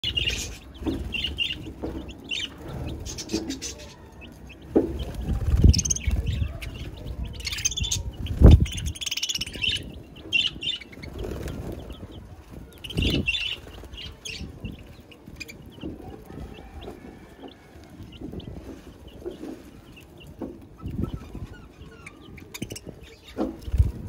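Budgerigars and young chicks chirping in short, scattered calls, mixed with a few dull thumps; the loudest thump comes about eight and a half seconds in.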